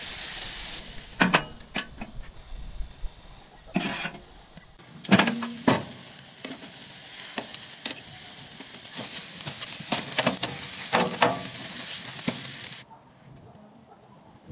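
Marinated chicken pieces sizzling on a hot grill grate, with metal tongs clinking sharply against the grate several times as the pieces are turned. The sizzle cuts off abruptly near the end.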